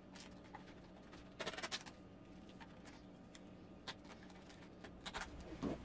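Faint scattered clicks and light crackles from hands handling a painted plastic armor piece, with a short cluster of them about a second and a half in, over a low steady hum.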